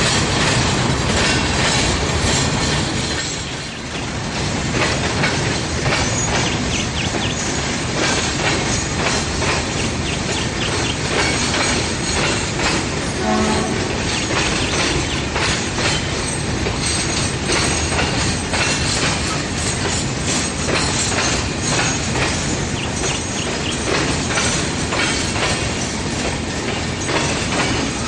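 Train rolling past, its wheels clattering steadily over the rail joints. There is a short pitched squeal or tone about halfway through.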